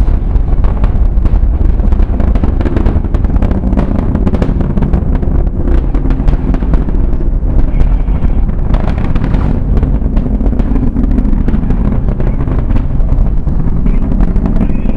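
Space Shuttle Discovery's launch roar: a continuous deep rumble from the solid rocket boosters and main engines, laced with dense, rapid crackling.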